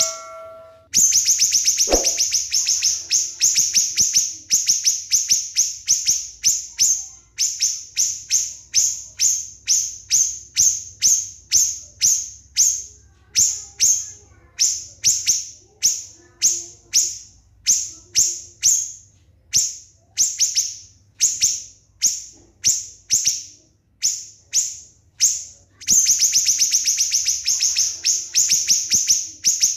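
A small songbird calling in rapid 'nembak' fashion: very high, sharp notes fired in quick runs about once a second, with longer unbroken rattling runs near the start and near the end.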